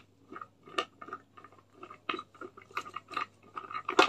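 Irregular light clicks and knocks of the plastic parts of a manual hand juicer being handled and fitted together.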